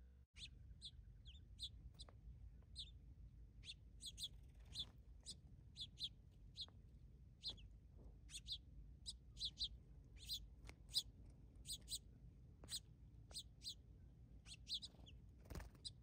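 Small songbirds chirping: many short, sharp chirp notes in an irregular stream, often two or three a second.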